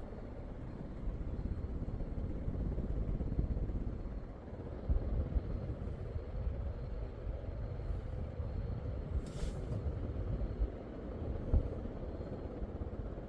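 Regency Marquis 52-inch ceiling fan running on high: a steady low rush of moving air with a faint steady hum from the motor.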